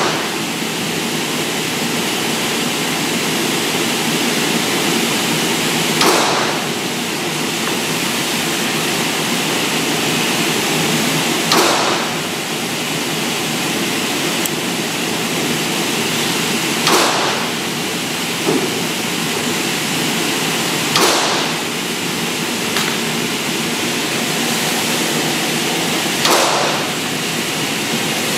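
Steady loud rushing of an indoor shooting range's ventilation, broken by five short echoing bangs spaced about five seconds apart.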